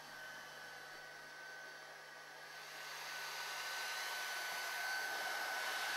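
Raychem CV1981 heat gun blowing: a steady airy hiss with a thin steady whine, growing louder through the second half.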